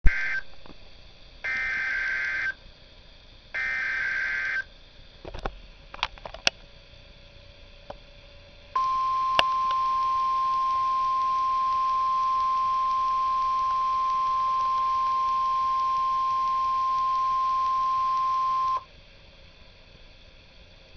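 NOAA Weather Radio alarm test: three roughly one-second bursts of SAME digital header data, the first cut off at the start, and a few clicks. Then the steady 1050 Hz warning alarm tone sounds for about ten seconds and cuts off abruptly.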